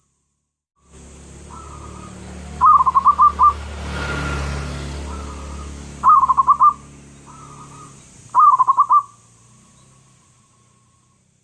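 Zebra dove (perkutut) cooing: three loud phrases of rapid rhythmic coo notes, each about half a second to a second long, with softer coos between them.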